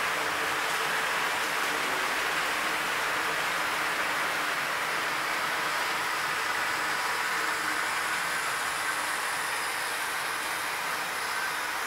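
Model railway trains running along the track: a steady hiss of motor and wheel noise with a faint whine.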